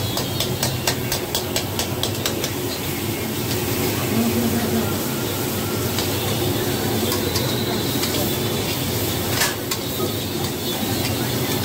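Onions sizzling and frying in an iron kadai over a steady rushing burner flame, with a metal spatula clicking and scraping against the pan, quickly for the first couple of seconds and once more later.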